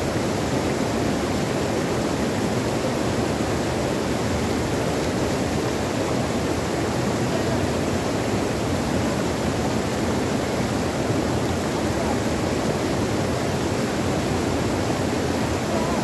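Stream water rushing and splashing over low rock cascades between boulders: a steady, unbroken rush of white water.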